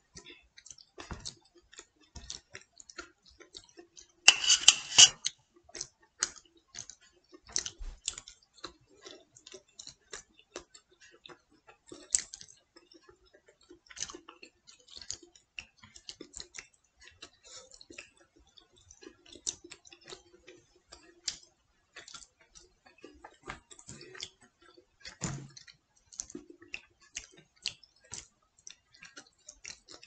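Close-up chewing of pizza: a scatter of small wet mouth clicks and smacks, with one louder, rougher burst about four seconds in.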